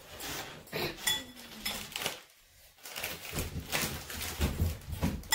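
Metal utensil clinking against a ceramic bowl while noodles are scooped and eaten, a few light ringing clinks in the first two seconds. After a short pause there are softer handling noises and small knocks.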